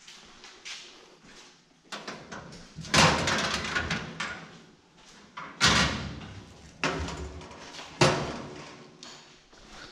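Steel school lockers being yanked open and banged by hand: about five sharp metal clangs, the loudest about three seconds in, each ringing and fading in the hard hallway.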